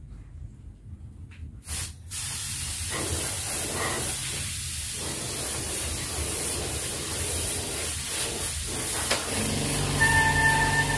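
Compressed-air spray gun (H&L F75) spraying epoxy primer at about 2 bar (30 psi): a steady hiss of air that starts about two seconds in. Music with steady held tones comes in near the end.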